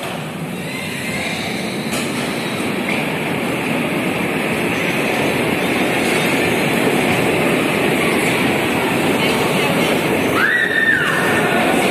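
Electric bumper cars rolling across the steel floor of the track: a steady rumble and clatter that builds as the cars start moving, then holds. A short rising squeal comes about ten seconds in.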